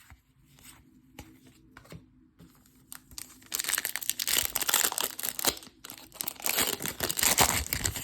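A trading card pack's foil wrapper being torn open and crinkled. Faint card handling at first, then loud crinkling and tearing from about halfway through, in two stretches.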